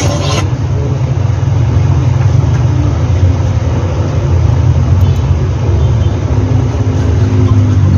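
Steady, loud low machine hum, like a motor or engine running, with a higher hiss that cuts off about half a second in.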